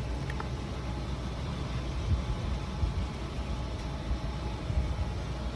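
Steady low rumble of an idling engine, with a faint click or two about a quarter second in.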